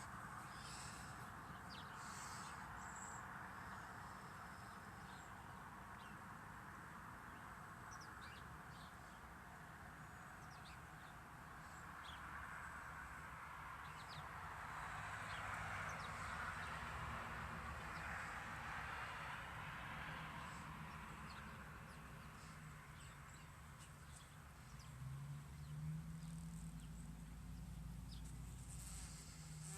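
Outdoor ambience: a steady rushing noise that swells about halfway through, with scattered faint bird chirps.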